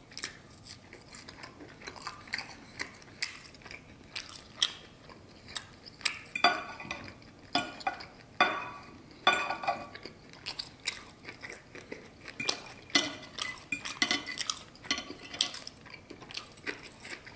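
Steak knife and fork clicking and scraping on a plate as steak is cut, with close-up chewing between cuts.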